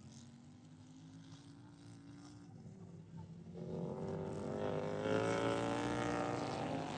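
Racing lawnmower engine at speed, growing louder as it comes past, loudest about five seconds in, then starting to fade.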